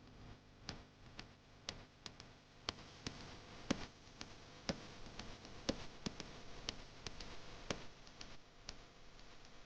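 Faint, evenly paced ticking at about one tick a second, with lighter irregular clicks between the ticks.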